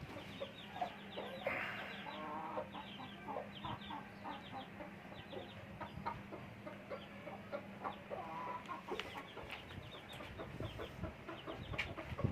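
Aseel chickens clucking, with a steady stream of chicks' short high peeps over the top. A steady low hum runs underneath.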